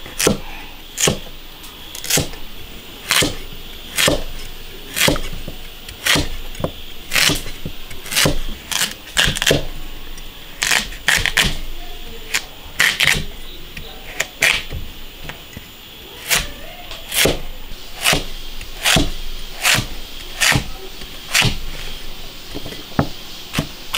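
Cleaver chopping peeled sweet potato into chunks on a thick wooden chopping block: sharp knocks about once a second, now and then two in quick succession.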